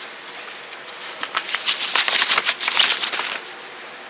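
Packaging rustling and crinkling as items are handled and unwrapped, in a dense crackly burst lasting about two seconds, starting a little past a second in.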